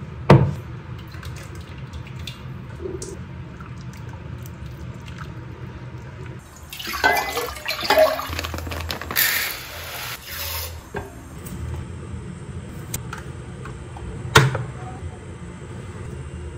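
Water poured from a plastic measuring cup into a pot, splashing for about three seconds in the middle. A sharp knock sounds near the start and a click near the end.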